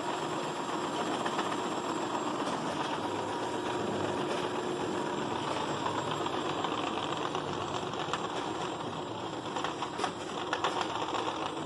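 Steady mechanical running noise of face-mask production machinery, with a few sharp clicks and knocks near the end.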